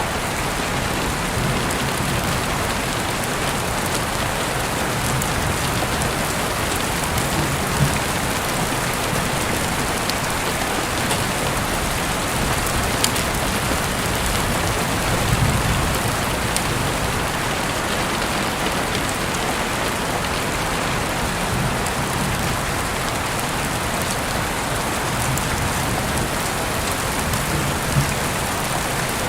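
Steady rain falling on a surface: a dense, even hiss, with a few sharp pops and soft low thumps now and then.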